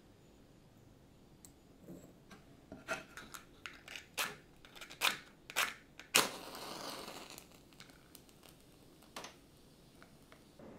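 Small clicks and scrapes of a matchbox and match being handled, then a match struck on the box about six seconds in, flaring with a rough hiss that lasts about a second.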